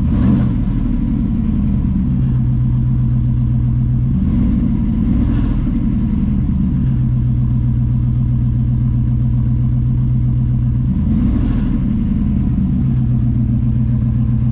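1994 Pontiac Firebird Trans Am's LT1 V8 idling through its exhaust, with three short throttle blips: one right at the start, one about four to six seconds in, and one about eleven seconds in.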